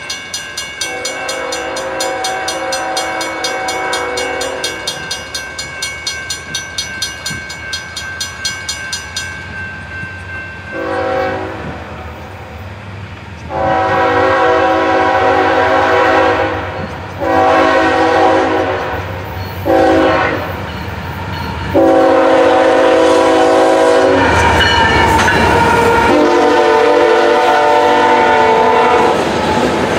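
Freight train diesel locomotive's air horn sounding the grade-crossing signal, long, long, short, long, while the crossing signal bell rings rapidly in the first several seconds. Near the end the locomotive rumbles past and the freight cars start rolling by.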